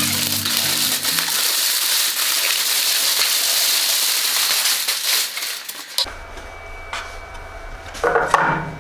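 Large plastic shipping wrap crinkling and rustling as it is pulled off a new bandsaw, stopping abruptly about six seconds in. After that only a low workshop hum and a couple of light knocks remain; a little music fades out near the start.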